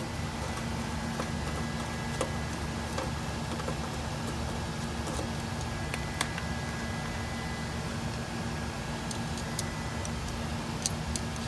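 Steady fan hum with a low, constant tone from the running UPS, and a few faint metallic clicks, about 2, 6 and 11 seconds in, as a ground-wire ring terminal is handled onto a steel stud.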